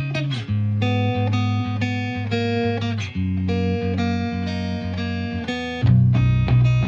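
Background music led by plucked guitar over a bass line, with a new, louder phrase about six seconds in.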